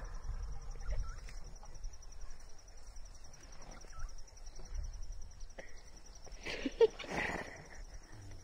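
African elephant sounds over a steady insect trill. Low rumbling fades after about five seconds, and about six and a half seconds in a loud elephant call lasts about a second.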